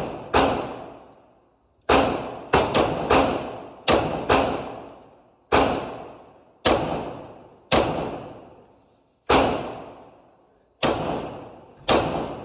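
Semi-automatic shots from an FN 15 AR-style rifle: about thirteen at an uneven pace, some in quick pairs. Each is a sharp crack with an echo that fades over about a second in the indoor range.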